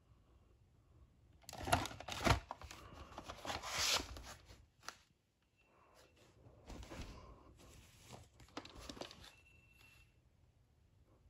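A VHS cassette and its cardboard sleeves being handled: about three seconds of scraping and rustling, a sharp tap, a short pause, then more rustling for a few seconds.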